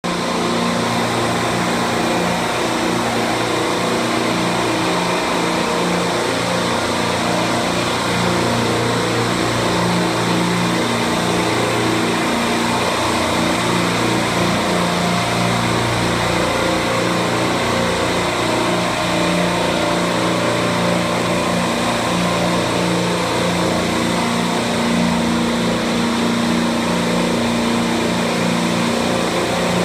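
Rack of Copeland Discus semi-hermetic reciprocating refrigeration compressors running together: a steady, loud machine hum with several low steady tones under a constant hiss.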